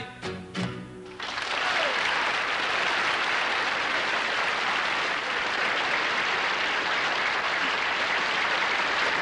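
The last notes of a song on acoustic guitars and double bass, cut off about a second in by a studio audience's applause, which carries on steadily.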